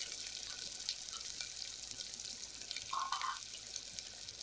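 Chopped onions and green chillies frying in hot oil with mustard seeds for a tempering: a steady sizzle with fine crackles. A short faint tone comes about three seconds in.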